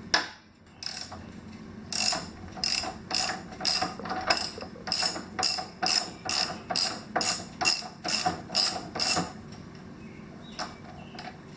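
Ratchet wrench clicking in repeated short strokes, about two a second, unscrewing the already loosened 19 mm front axle nut of a Honda ADV150 scooter. A single sharp clack comes right at the start, and the ratcheting stops about two seconds before the end.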